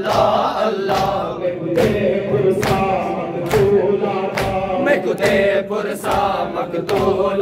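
A crowd of men chanting a Muharram noha (lament) in unison, with rhythmic chest-beating (matam) strikes in time, a little over one per second.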